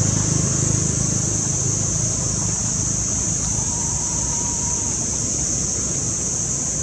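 Roadside traffic ambience: the low rumble of a passing vehicle fading away, over a steady high-pitched hiss.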